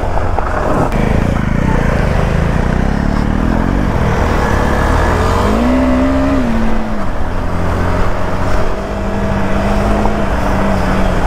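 KTM 390 Adventure's single-cylinder engine running while riding, its revs climbing over the first few seconds, rising and dropping briefly about halfway, then holding steady.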